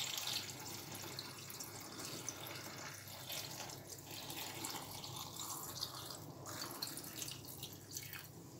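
Pickling brine poured slowly from a glass pitcher into a glass jar packed with green peppers: a faint trickle of liquid.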